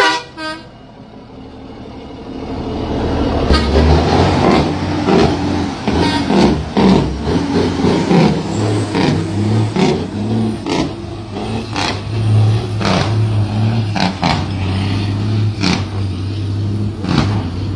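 A heavy dump truck's diesel engine pulls away and accelerates. It grows loud about three seconds in, with a low drone under it and sharp cracks scattered through it.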